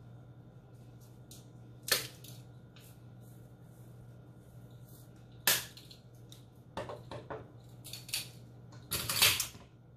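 Several sharp taps and knocks at irregular intervals: one about two seconds in, one about halfway, then a quicker cluster near the end. They come from a small spice jar being tapped and shaken over a stainless steel mixing bowl. A faint steady hum runs underneath.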